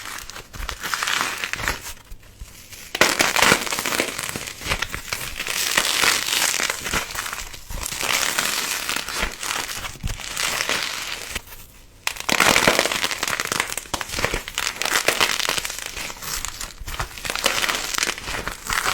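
Something crinkly being crushed, crackling and crinkling in long bursts with short pauses about two seconds in and again near the middle.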